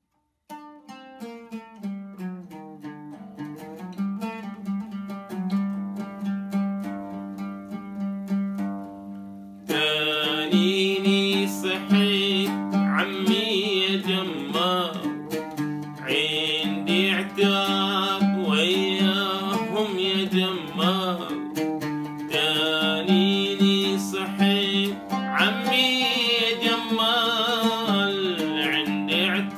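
Oud being plucked in a slow solo introduction over a steady low drone. About ten seconds in, the music turns suddenly louder and fuller and a man's voice sings along.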